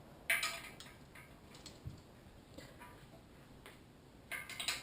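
Sharp metallic clicks and clinks from broken parts of a wrecked LS V8 engine being handled: one loud click a little after the start, a few faint ones, then a quick cluster near the end.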